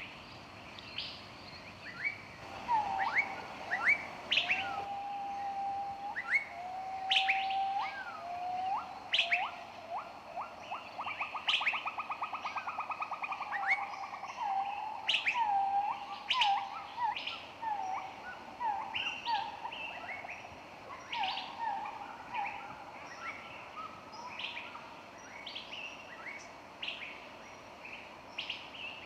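Several songbirds singing and calling, with sharp high chirps all through. Lower whistled notes come a few seconds in, and a rapid trill follows in the middle.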